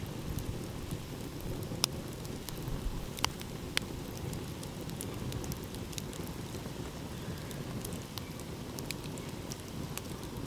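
Wood fire crackling, with scattered sharp pops, the loudest about two, three and four seconds in, over a steady low rumble of ocean surf.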